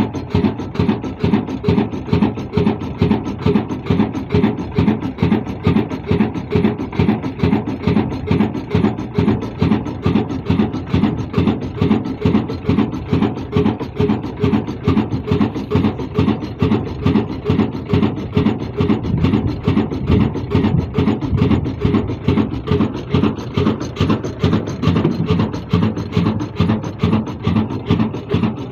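Old single-cylinder horizontal stationary diesel engine with large flywheels running at a steady speed, its exhaust beating in an even, quick rhythm.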